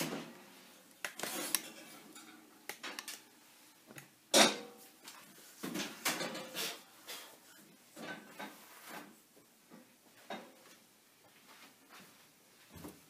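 Kitchenware clattering as a bread baking pan is fetched and handled, with a sharp knock about four seconds in and scattered lighter clicks and knocks.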